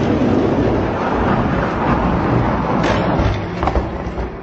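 Two oversized die-cast Hot Wheels monster trucks rolling down a long orange plastic track: a loud, steady rumble of plastic wheels on the plastic lanes. A few sharp clacks come near the end, then the rumble eases off.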